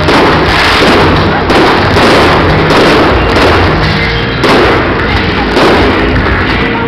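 Aerial fireworks bursting overhead: a continuous run of booms and crackling, with a fresh bang about every second. Music plays underneath.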